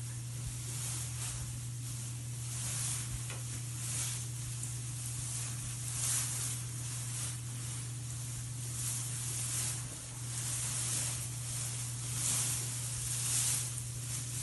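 A beaver sneezing: short hissy bursts at irregular intervals, about seven over the stretch, over a steady low hum.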